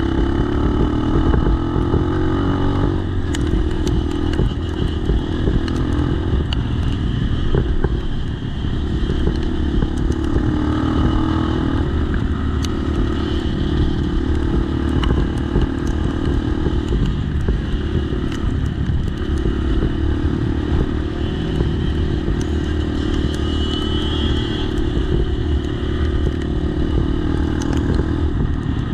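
Dirt bike engine running under way from on board the bike, its pitch shifting now and then with the throttle and easing briefly about eight seconds in, over a steady low rumble. Scattered light ticks and clatter come through.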